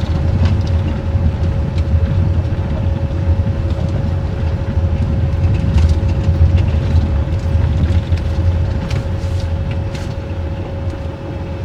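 Minivan driving, heard from inside the cabin: a steady low road-and-engine rumble with a thin, steady hum above it.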